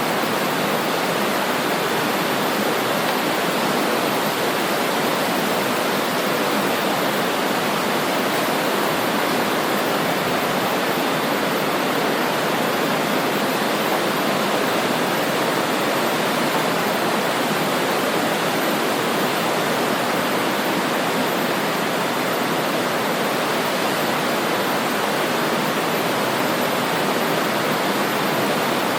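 A fast-flowing river rushing steadily, a dense, unbroken wash of water noise.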